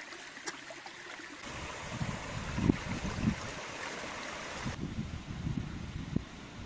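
A small rocky stream running, a steady wash of water noise, with irregular low thuds starting about a second and a half in.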